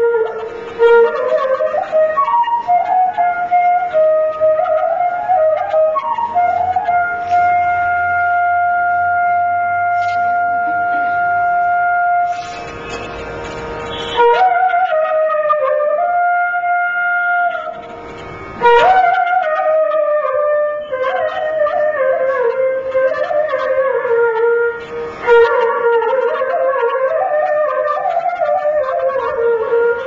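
Solo flute playing a slow, ornamented melody, with one long held note about a quarter of the way in and a couple of short pauses later.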